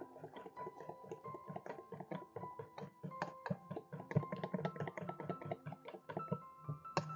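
Background piano music over a whisk clicking rapidly and irregularly against a stainless steel bowl as a batter is beaten.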